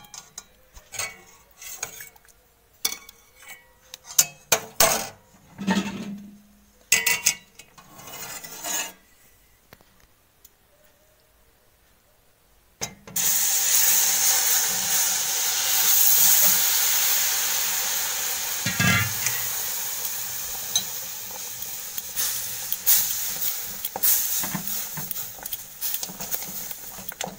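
A steel spoon scraping and clinking against a metal kadai as hot caramel is stirred. About halfway through, milk poured onto the hot caramel sets off a sudden loud sizzle that slowly fades while the spoon keeps stirring.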